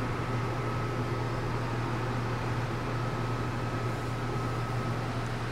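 Camper air conditioner running: its blower fan rushing air over a steady electrical hum with a faint thin tone above it.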